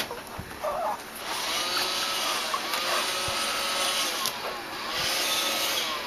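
Roomba robot vacuum running on carpet, a steady whirring that gets louder about a second in, its pitch rising and falling again and again. A few short knocks come before it.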